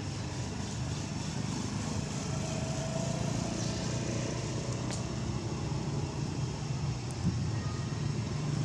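Steady low background rumble with a faint hiss, with a couple of faint clicks.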